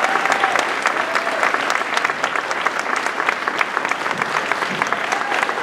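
An audience applauding: many hands clapping steadily and densely.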